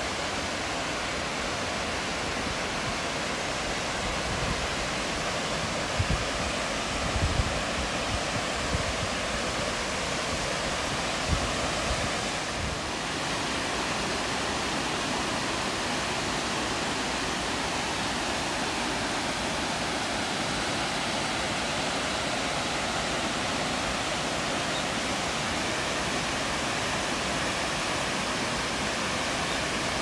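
Steady roar of rushing water from Ganryuji Falls, a tall four-tier waterfall, and its rocky stream. A few brief low thumps come in the first half.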